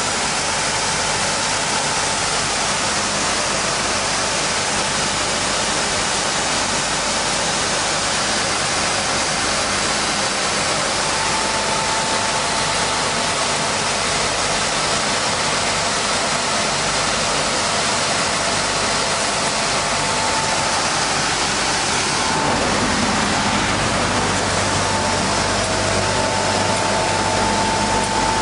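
Industrial wide-belt sanding machine running with a loud steady rushing noise and a faint thin whine, as poplar wood strips are fed through on its conveyor. About three quarters of the way in the sound becomes fuller, with a low hum added.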